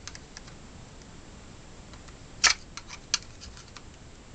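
Flat-blade screwdriver tip prying at a wire retaining clip on a cordless screwdriver's plastic housing: a few light clicks and scrapes, the loudest a sharp click about two and a half seconds in, another about half a second later.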